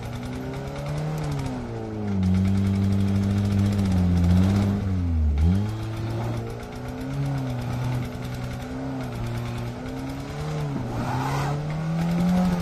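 Engine running under heavy load, its pitch rising and falling several times with a deep dip about five seconds in, as a patpat farm tricycle strains to tow a van stuck in grass.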